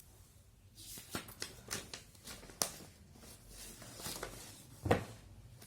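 Handwriting with a pen: a series of short scratchy strokes and clicks, with a louder tap about five seconds in.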